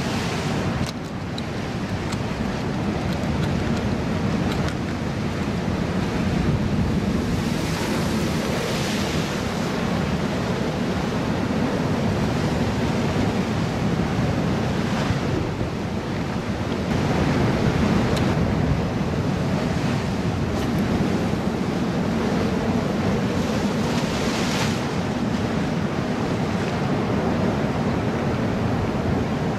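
Ocean surf breaking and washing against a rock wall, with wind buffeting the microphone. Waves surge louder several times.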